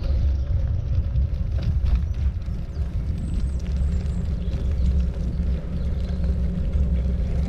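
Wind buffeting the microphone outdoors: a steady low rumble, with a few faint clicks over it.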